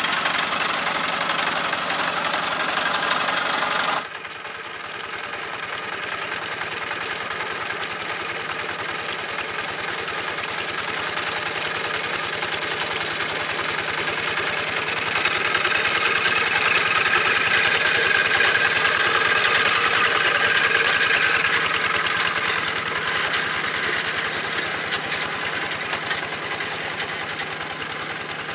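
The single-cylinder diesel engine of an old Kubota two-wheel hand tractor runs steadily under load as its cage wheels work through flooded rice-paddy mud. The level drops abruptly about four seconds in, grows louder toward the middle as the tractor comes closer, then fades as it moves away.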